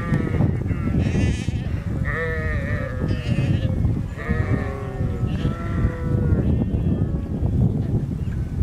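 A large flock of sheep bleating, many calls overlapping one after another, over a steady low rumble.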